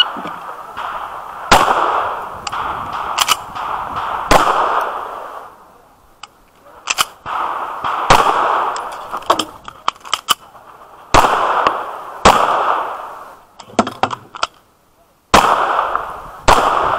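Semi-automatic pistol fired in a course of fire: about ten sharp shots spread over the stretch, some close together and some a second or more apart, each trailing off in echo. There is a pause of a second or so shortly before the last two shots.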